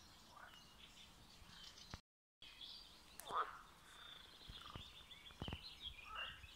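Faint birdsong: scattered high chirps and a few short falling calls, the loudest just past three seconds in. The sound drops out completely for a moment about two seconds in, and a few soft low knocks come near the end.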